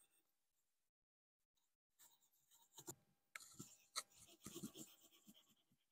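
Fine steel wool scrubbing a small brass end plate on the wooden handle of a vintage Stanley T-bevel, worked with lemon juice to lift the tarnish: faint, irregular scratchy strokes begin about two seconds in, with a sharper tick about four seconds in.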